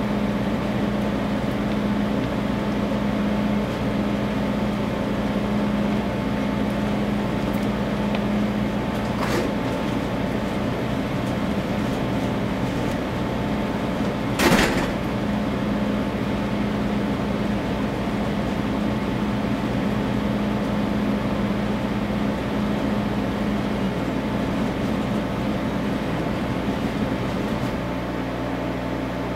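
Homebuilt selective laser sintering printer running as its laser head traces a layer of a gear: a steady machine hum with a low tone that drops out and comes back as the head moves. One sharp click sounds about halfway through.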